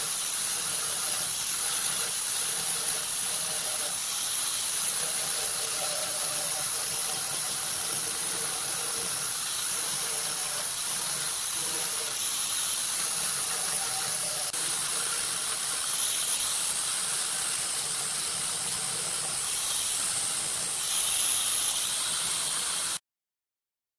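Small handheld grinder with a red abrasive disc running against a rusty chainsaw chain, scouring off the rust: a steady high-pitched whine over a hiss. It stops abruptly near the end.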